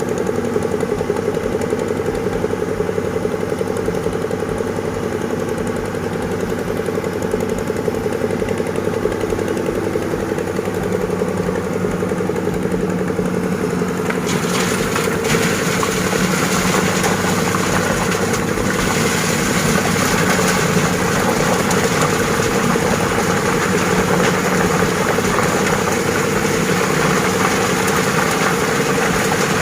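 Diesel engine of an excavator loading a dump truck, running steadily. About halfway through a rushing hiss joins the engine sound.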